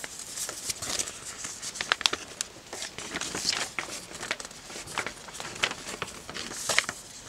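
A large folded paper poster being unfolded by hand: irregular paper rustling and crinkling with scattered short snaps and clicks as the folds open.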